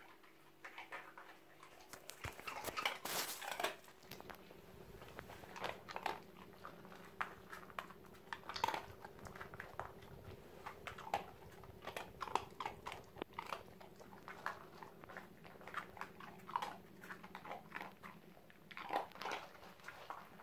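Dog crunching dry treats that it noses out of a treat-dispensing ball, with irregular small clicks and knocks on a laminate floor.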